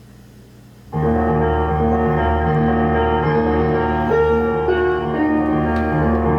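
An 8-track (stereo 8) tape playing piano music through a 1973 RCA stereo console's speakers. A low hum comes first, then the music starts suddenly about a second in.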